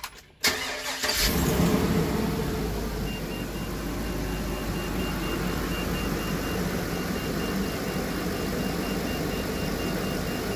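8.1-litre Vortec V8 gasoline engine of a Workhorse-chassis motorhome, cranked by the starter about half a second in and catching within a second. It flares up briefly, then settles into a steady, smooth idle on freshly installed spark plug wires. It is heard from inside the cab with the engine cover off.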